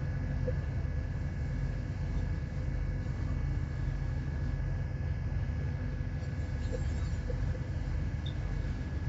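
Ship's engine running with a steady low drone and a faint steady whine above it.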